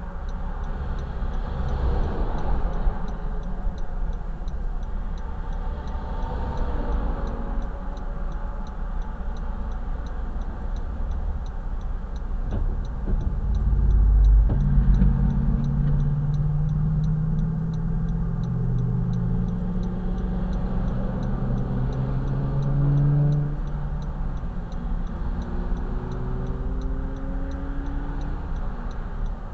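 Highway traffic passing a car stopped on the shoulder: a steady low rumble of vehicles going by. About halfway through a louder vehicle passes, its engine note holding and slowly rising for several seconds. Under it all there is a faint, quick, regular ticking.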